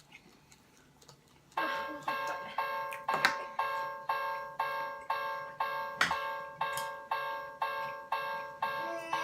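Toy railway level-crossing warning bell sounding its electronic "kan-kan" ding, about two and a half strikes a second, starting about one and a half seconds in. There are a couple of knocks from plastic toys being handled.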